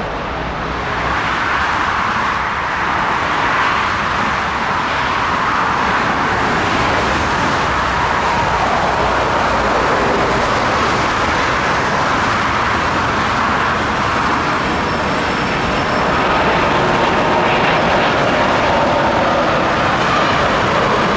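Airbus A330-300 airliner on approach to land: steady rushing jet-engine noise that grows louder, with a faint high whine coming in near the end.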